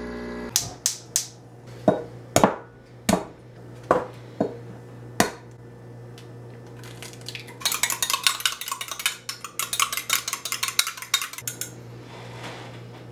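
Kitchen clatter: a string of sharp knocks and taps of dishes and utensils, then a fork whisking eggs in a small glass bowl, a fast clinking clatter lasting about four seconds, over a steady low hum.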